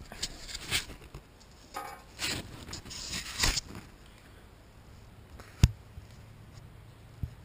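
Camera handling noise: rustling and scraping for about the first four seconds while the camera is moved, then a sharp knock a little past halfway and a smaller knock near the end.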